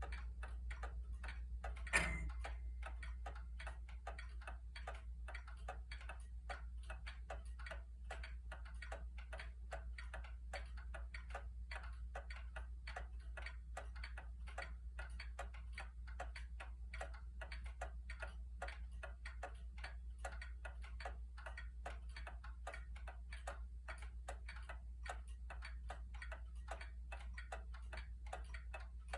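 Antique Gilbert kitchen mantel clock (Leopard model, c. 1891) ticking steadily. One louder knock with a brief ring comes about two seconds in.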